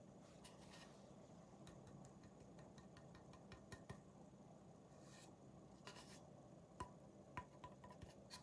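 Near silence: faint room tone with scattered light clicks and rubs from hands handling and touching a foil-taped wooden board, a few of them sharper in the second half.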